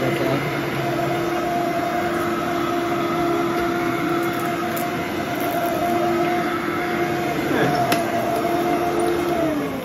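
Bagless upright vacuum cleaner running on carpet, its motor giving a steady whine. A click about eight seconds in; near the end it is switched off and the motor winds down, its pitch falling.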